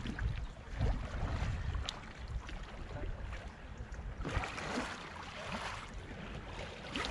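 Water splashing as a capsized sea kayak is rolled back upright, the paddle sweeping the surface, with the stronger splashing about four seconds in. Wind rumbles on the microphone over the first two seconds.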